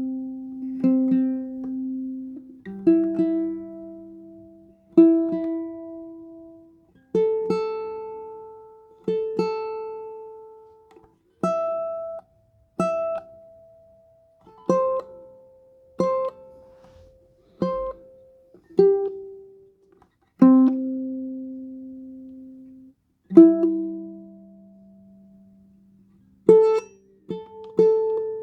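Tenor ukulele played one pluck at a time: single notes and two-note pairs, each left to ring out and fade over one to three seconds, in a slow, unhurried sequence showing off its tone.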